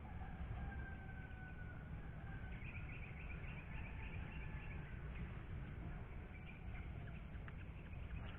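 Birds calling, with a quick run of high chirps in the middle, over a steady low outdoor rumble.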